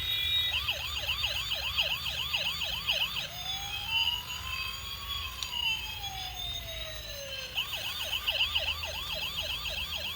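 Toy fire truck's electronic siren. It runs a fast yelp of about three rapid pitch sweeps a second, switches to one slow wail that rises and falls, then goes back to the fast yelp.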